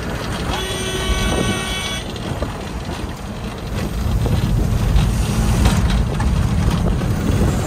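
A vehicle horn sounds one steady note for about a second and a half, starting about half a second in, over a loud steady low rumble of vehicle noise.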